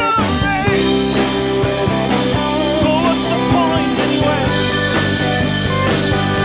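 Rock band playing live: electric guitar over a regular drumbeat and sustained low notes, with a wavering melody line on top.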